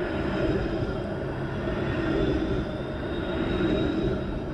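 Toronto TTC Flexity Outlook streetcar passing close by: steady low running noise of the car on its rails, with a faint high whine that rises slightly in pitch near the end.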